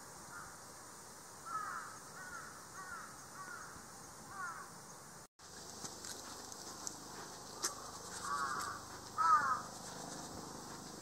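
Crows cawing: a quick run of about five caws, then after a short break two louder bursts of caws later on.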